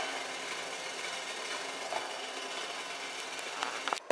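Steady background hum from a running machine, with a light click as a glass tomato-sauce bottle is picked up and a few more clicks of handling near the end.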